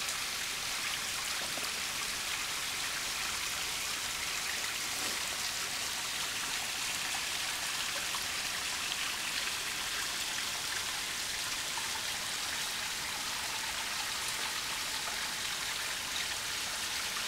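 Stream water running steadily down a stepped rock ledge and splashing into a shallow pool: an even, hissing patter of falling water.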